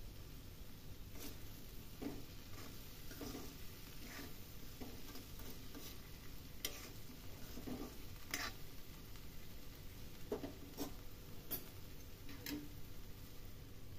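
Spatula stirring potatoes and chopped mustard pods in a kadhai: irregular scrapes and clicks against the pan.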